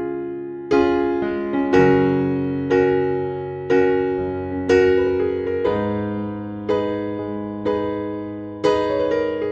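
Background music: electric piano playing slow, sustained chords, struck roughly once a second and each left to fade.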